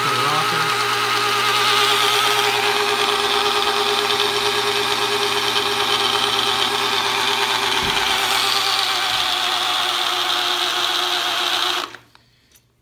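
Corded electric drill running steadily in reverse, spinning a big-block Ford's oil pump through a priming tool down the distributor hole to prime the oil system. Its pitch wavers as it works against the pump's resistance, and it stops suddenly near the end.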